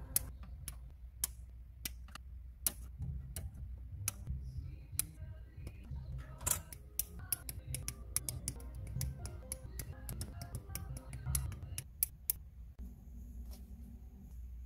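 Plastic-model nippers snipping kit parts off the plastic sprue: a run of sharp, irregularly spaced clicks that stop shortly before the end, over soft background music.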